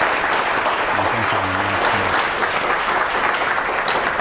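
An audience clapping, steady and dense.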